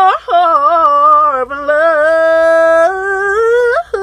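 A woman singing a gospel melody solo and unaccompanied, bending through short runs and then holding one long note before sliding up near the end.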